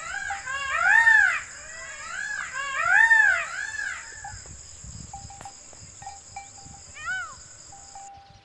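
Indian peafowl calling: a series of loud wailing calls, each rising and falling in pitch, about one a second, fading out after about four seconds with one more call near the end. A steady high hiss runs underneath and cuts off shortly before the end.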